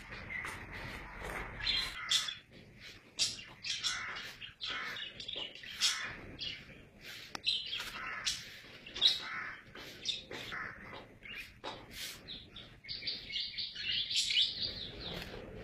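Many short, high chirping calls at irregular intervals, with a few sharp clicks among them.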